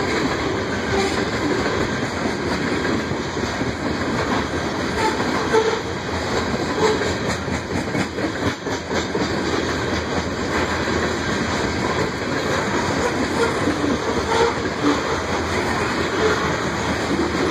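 Loaded coal hopper cars of a freight train rolling past, a steady noise of steel wheels on the rails with scattered clicks from the wheels over the track.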